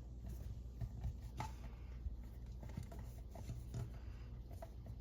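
Faint scattered clicks and light rubbing from things being handled, over a low steady hum.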